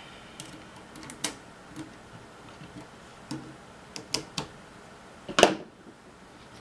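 Small, scattered clicks and taps of a screwdriver and fingers prying at parts of a camcorder's metal tape-mechanism chassis, with one louder, sharper click about five and a half seconds in.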